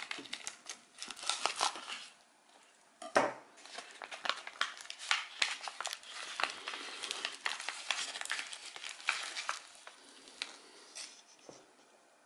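The dry, charred skin of a baked sweet potato crackling and crinkling as it is scraped with a knife and peeled and pulled apart by hand, in dense clusters of small crackles. A single sharp knock about three seconds in is the loudest sound; the crackling thins out near the end.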